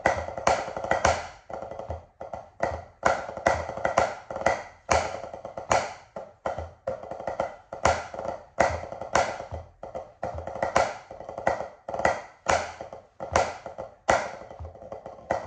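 Drumsticks on a rubber drum practice pad, playing pipe band snare drum parts: quick runs of light taps and rolls punctuated by strong accented strokes every half second to a second.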